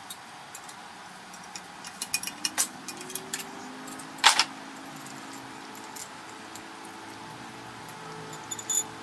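Metal clinks and knocks of tools and parts handled on a workbench, a quick run of them a couple of seconds in and the loudest about four seconds in. Under them a faint hum rises in pitch and then holds steady.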